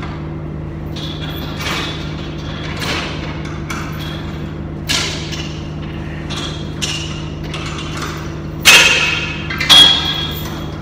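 Metal knocks and clanks from work on a silo unloader's centre gearbox, each ringing and echoing off the concrete walls of the empty silo; the two loudest come close together near the end. A steady low hum runs underneath.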